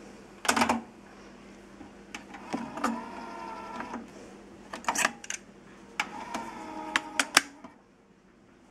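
Technics RS-TR474 cassette deck being worked by hand: the stop key clicks, Deck 1's cassette door opens, the cassette is taken out and the door is pushed shut. It is a run of plastic clicks and clacks, with two short humming stretches in between.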